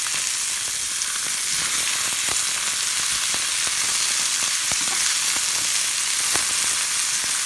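Koi fish (climbing perch) shallow-frying in hot oil in a pan under sliced onions, a steady sizzle with a few scattered small pops and clicks.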